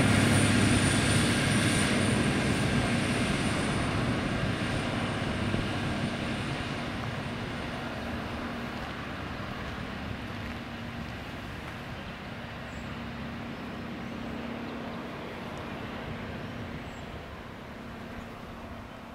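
V/Line VLocity diesel railcar set pulling away, its engine hum and wheel noise fading steadily into the distance. A thin high whine fades out within the first few seconds.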